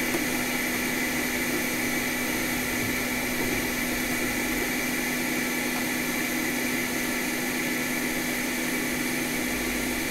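An electric fan running steadily: a constant whir with a low hum underneath.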